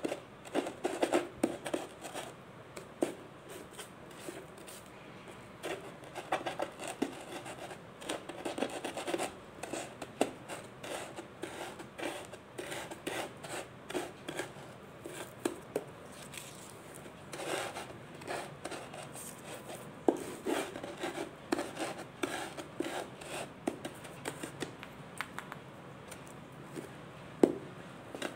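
Solid mothball cakes being crushed and crumbled between the fingers: irregular clusters of crunching cracks and gritty scraping, with a couple of sharper cracks near the end.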